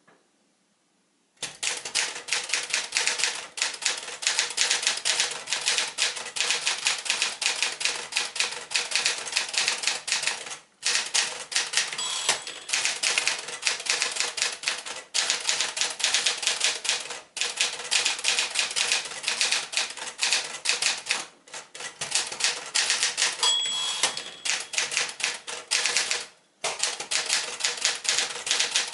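Sears Constellation manual typewriter (a rebadged Smith-Corona Galaxie) being typed on at a quick, steady pace, with keys and typebars clacking rapidly. The typing starts about a second in and pauses briefly several times, and a short ring sounds twice.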